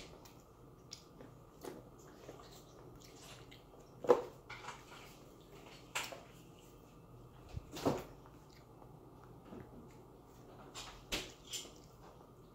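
A toddler eating at a plastic high-chair tray: a handful of light knocks and clicks spread over quiet room tone, the sharpest about four seconds in.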